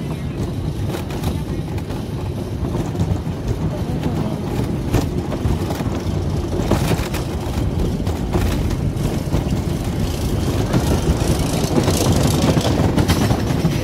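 Wooden roller coaster train rolling along the track with a steady rumble and clatter of its wheels. Near the end the clicking gets denser as the train starts up the chain lift hill.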